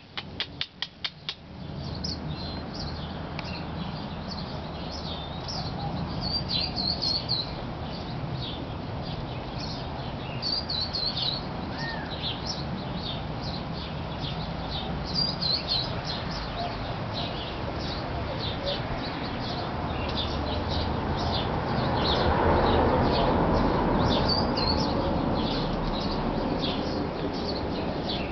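Small birds chirping in short, high calls again and again over a steady outdoor background hum. A quick run of clicks sounds in the first second or so, and a broader rushing noise swells about twenty seconds in and fades again.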